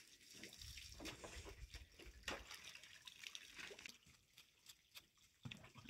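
Faint, irregular wet scraping and sloshing as a flat stone is rubbed over wet, puddled ground.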